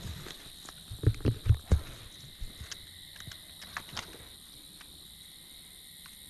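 Footsteps on the ground: four or five quick heavy steps about a second in, then a few light clicks and rustles, over a steady high insect trill.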